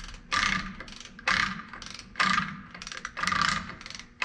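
Torque wrench ratcheting a hub bearing lock nut tight on a Dodge Ram 5500's front hub: four short runs of ratchet clicks, about one a second, as the wrench is swung back and forth.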